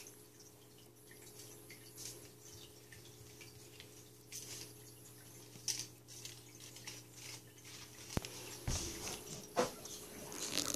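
Kittens playing on a wooden floor: scattered light clicks and taps from paws and toys, with a few sharper knocks in the last three seconds, over a steady low hum.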